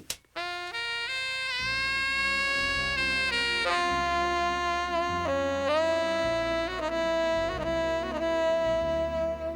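Jazz music: a saxophone plays a slow melody, bending into long held notes, over a bass line that comes in about a second and a half in.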